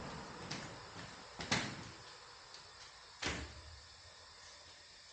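Knocks or clunks: a faint one, then two sharper ones about two seconds apart.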